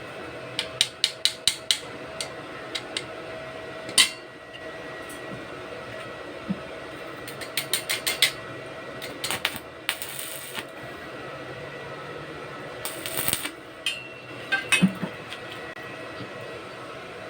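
Metal parts clicking and clinking as they are handled, in quick runs of sharp clicks with a single loud knock about four seconds in, and two short hissing bursts, over a steady hum.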